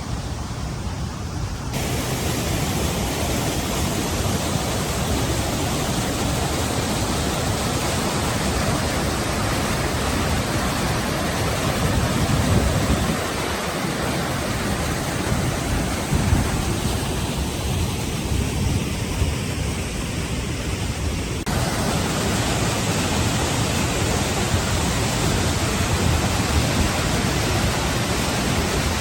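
A waterfall's steady roar of falling water. The sound changes abruptly in tone about two seconds in and again about twenty-one seconds in.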